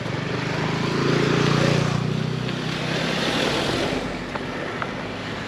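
A motor vehicle's engine passing close by, growing louder to a peak about two seconds in and then fading away.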